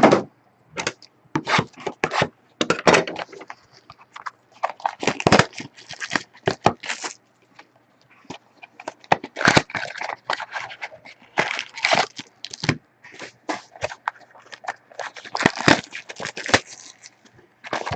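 Trading cards and their packaging being handled: an irregular run of short rustles, scrapes and taps with brief pauses between them.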